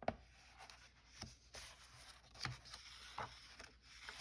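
Pages of a paperback coloring book being turned and handled: faint paper rustling with a few soft taps.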